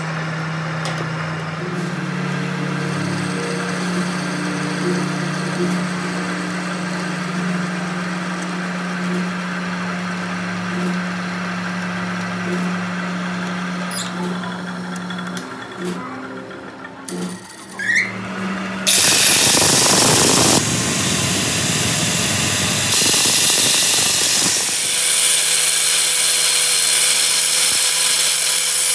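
Metal lathe running with a steady hum while turning a steel tie rod ball. About two-thirds through, an angle grinder starts grinding the spinning ball, a loud, even grinding noise that is the loudest part.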